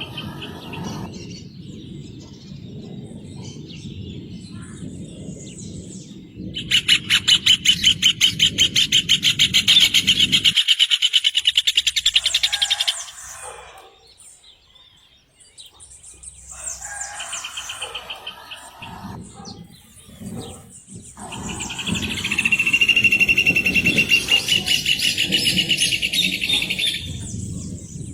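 Rufous hornero (João-de-barro) singing its loud, rapid trill of evenly repeated notes, in three bouts: a long one about a quarter of the way in, a short fainter one midway, and another long one near the end.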